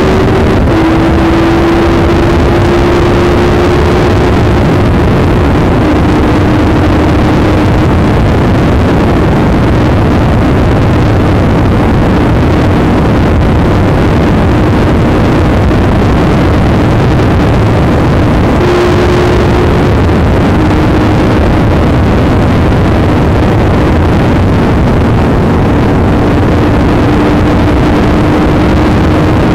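Triumph Tiger 1200 GT Pro's three-cylinder engine held at a near-constant high rev in sixth gear at about 200 km/h, its top speed. Heavy wind rush on the microphone drowns most of the engine, which shows as a thin steady hum with small dips in pitch.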